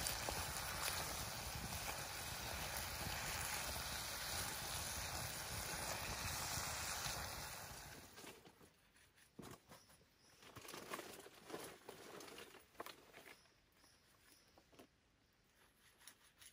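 A steady rushing noise for about eight seconds, then an abrupt drop to faint, scattered clicks and rustles of handling.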